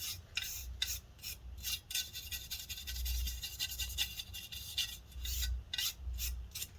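A brush's bristles scrubbing dust off a laptop fan assembly in quick, irregular back-and-forth strokes.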